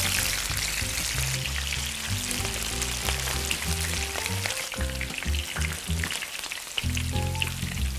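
Veal-stuffed baby eggplants frying in hot oil in a small frying pan, a dense steady crackle and sizzle, with the oil spooned over them.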